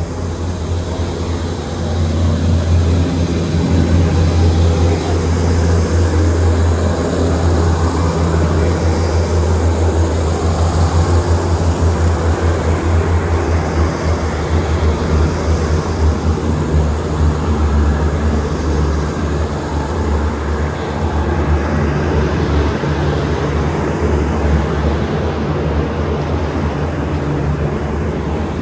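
A train running past on the tracks close by, with a steady low engine drone and rumbling rail noise, swelling a couple of seconds in.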